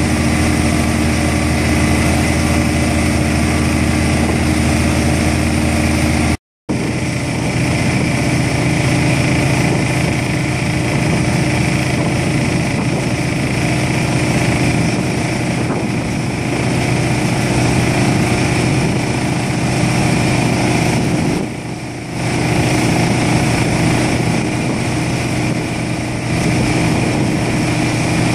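Bruce SGV-400 vibratory pile hammer driving a steel sheet pile, a loud steady mechanical drone together with the engine of its hydraulic power pack. The sound cuts out for a moment about six seconds in, then resumes rougher.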